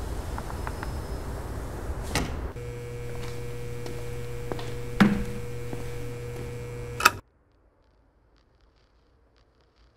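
Low outdoor rumble, then a click and a steady electrical hum in a room, broken by two sharp clicks about five and seven seconds in. The sound cuts off suddenly, leaving near silence.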